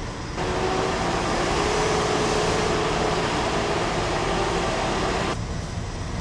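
Heavy machinery running with a steady low engine rumble, and a louder stretch of hissing mechanical noise that cuts in abruptly about half a second in and cuts off about a second before the end.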